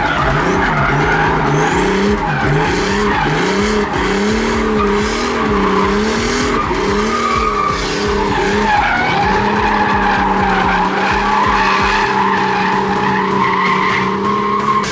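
Turbocharged drift car's engine heard from inside the cabin, its revs rising and falling roughly once a second as the throttle is worked through a drift, over the hiss of sliding tyres. After about nine seconds the engine holds a steady higher rev with a thin high whistle above it.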